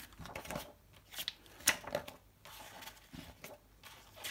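Glossy pages of a thick picture book being flipped through quickly by hand: an irregular run of short papery flicks and rustles.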